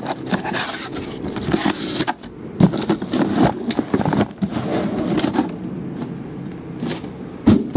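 Cardboard trading-card boxes being handled and slid around on a tabletop: scraping and rustling with scattered knocks, and a sharper thump near the end as a box is set down.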